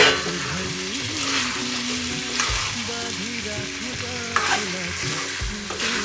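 Pork curry sizzling as it fries in a pan, with a spoon stirring and scraping against the pan several times; the loudest clatter comes at the very start.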